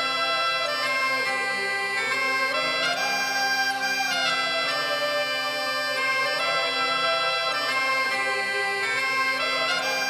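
Bagpipe music: steady drones held under a chanter melody that rises and falls.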